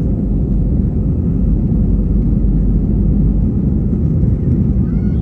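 Cabin noise of an Airbus A320 on its takeoff roll: the engines at takeoff thrust and the wheels on the runway make a loud, steady rumble. A brief, faint high-pitched sound comes near the end.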